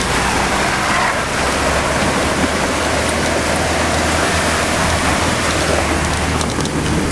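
Steady rush of water around a car crossing a flooded road, heard from inside the cabin, with the engine's low hum underneath.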